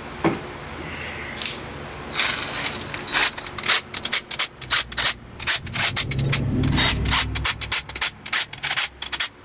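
Impact wrench running main bearing cap bolts down in many short bursts, the trigger feathered so each bolt is only snugged lightly before final torquing, moving from bolt to bolt.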